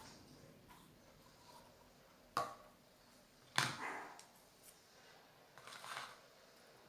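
Small objects being handled on a table while slime is made: two sharp knocks with a short ring about a second apart, then a brief scrape.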